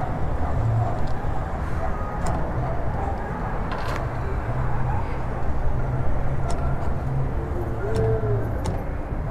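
A vehicle engine idling, a steady low rumble, with a few sharp clicks scattered through it.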